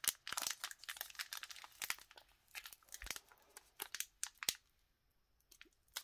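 A foil Pokémon booster pack wrapper crinkling and tearing as it is ripped open by hand, in short crackles. The crackles are dense at first and grow sparser, with a short quiet gap near the end.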